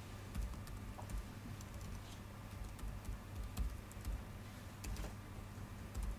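Faint, scattered keystrokes on a computer keyboard as a command is typed into a terminal, a few irregular clicks a second, over a low steady hum.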